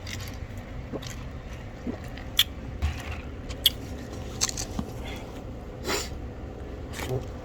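Chewing and mouth sounds of a person eating: a handful of short wet smacks and clicks over a steady low hum.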